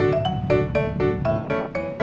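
Background music: an instrumental track of pitched, ringing notes struck about four a second.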